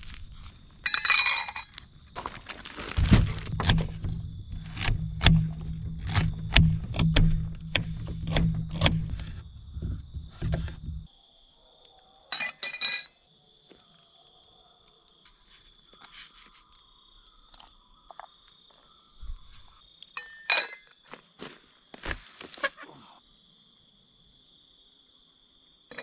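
Metal clinks and knocks of a camp cooking pot and its lid being handled on a grill over a campfire. They come thick over a low rumble for the first ten seconds or so, then turn sparse. A steady high insect drone runs underneath.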